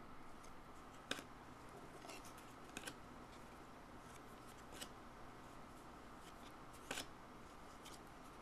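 Faint handling of trading cards: a few light snaps and clicks as the cards are flipped through one by one, the sharpest about a second in and near the end.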